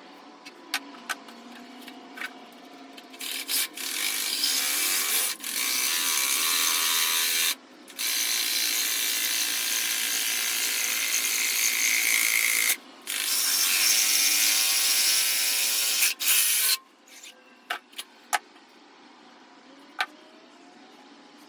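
A cardboard carpet tube being cut through: long stretches of harsh rasping cutting noise, broken by two short pauses, then a few scattered clicks and knocks near the end.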